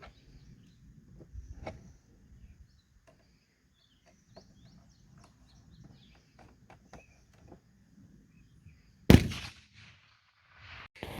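Faint bird chirps, then a single loud gunshot about nine seconds in, with a short echo trailing off.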